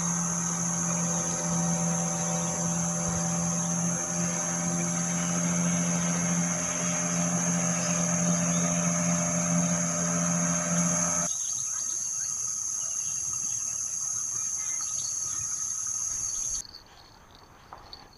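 A small boat's outboard motor running steadily across the river, stopping abruptly about eleven seconds in, over a steady high-pitched insect buzz. The insect buzz cuts off near the end and the sound drops away.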